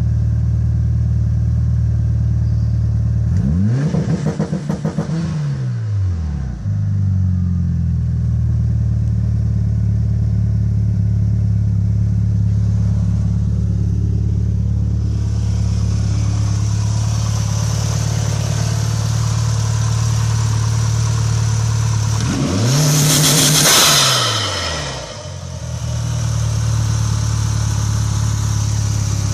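Mitsubishi Evo VIII MR 4G63 turbocharged four-cylinder engine, tuned to about 415 bhp, idling steadily and blipped twice, about four seconds in and again near the twenty-three-second mark; each time the revs climb and quickly drop back to idle.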